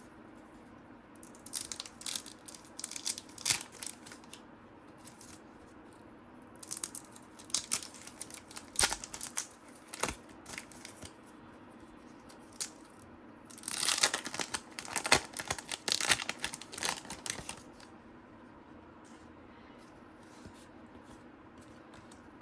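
Trading cards and a pack wrapper being handled: bursts of crinkling and rustling in three spells, dying away for the last few seconds.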